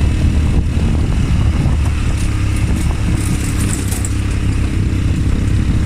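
ATV engine running steadily with a low, loud rumble, with a few light rattling clicks about three seconds in.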